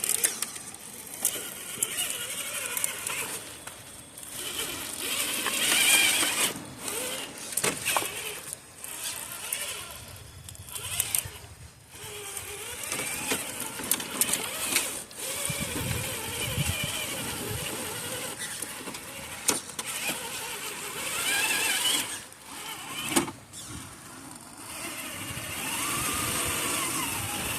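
Traxxas TRX4 RC crawler's electric motor and gear drivetrain whining in repeated short bursts, the pitch rising and falling with the throttle as it crawls over rocks. Tyres and chassis click and knock against the stone.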